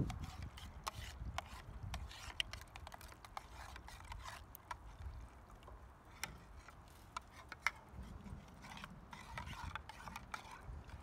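Metal spoon stirring a drink in an enamel camp mug, clinking against the sides in many quick, irregular taps.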